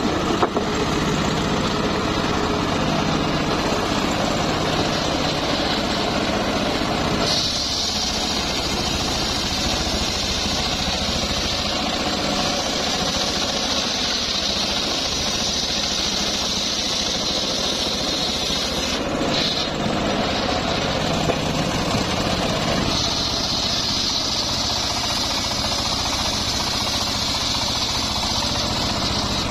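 Engine-driven homemade circular sawmill running steadily, its large blade cutting lengthwise through a log. A high sawing whine sits over the engine's hum from about seven seconds in to about nineteen seconds, drops away for a few seconds between passes, and comes back about twenty-three seconds in.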